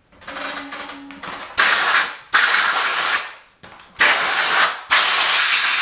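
A power tool run in four short bursts of about a second each, with a weaker stretch before them, while the snowmobile ski's carbide runner is being fastened. Each burst is a harsh noise with no clear pitch and starts and stops abruptly.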